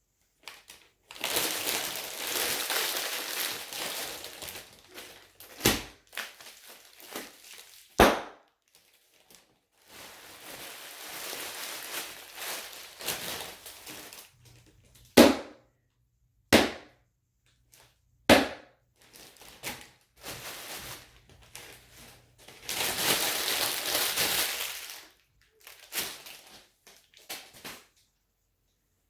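Firework foley made from trash and sandals: three long stretches of dense crackling and crinkling, each a few seconds, with about six sharp single bangs between them.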